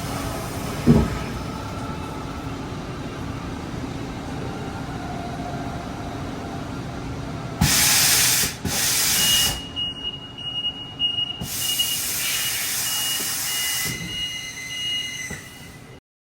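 Haas EC-400 horizontal machining center running with a steady mechanical hum and a single thump about a second in. From about eight seconds in come loud bursts of hissing, with a thin steady whine running under them.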